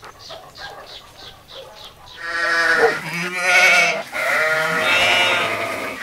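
Sheep bleating: three wavering bleats starting about two seconds in, the last one long.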